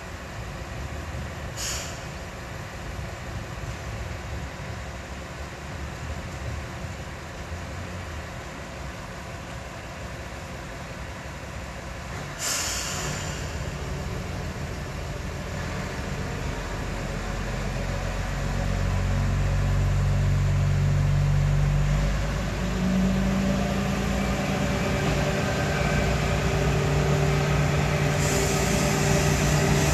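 Kyoto Tango Railway KTR300 diesel railcar idling, with two short hisses of released air. From about halfway its diesel engine grows louder as the railcar pulls away from the station, with a brief dip and a change of pitch about three-quarters through.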